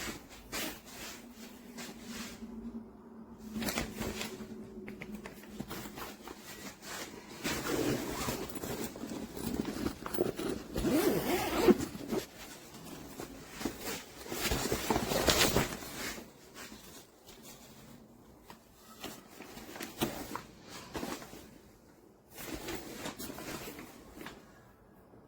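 Zipper on a fabric insulated cooler backpack being pulled, along with rustling and scraping as the bag is handled, in uneven bursts. The loudest stretches come about a third of the way in and again about two-thirds of the way through.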